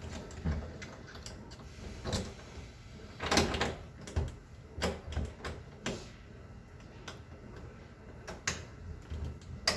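Scattered clicks, knocks and rattles of someone working at a locked bathroom door's privacy lock and handle, trying to open it from outside, with a louder scrape a little after three seconds in and a sharp click near the end.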